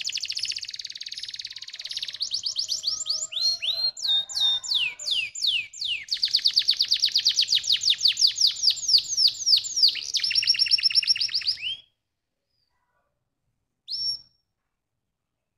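Domestic canary singing: a long song of fast trills and rolls of repeated downward-sliding whistled notes, several a second, that stops suddenly about twelve seconds in, followed by one short note near the end.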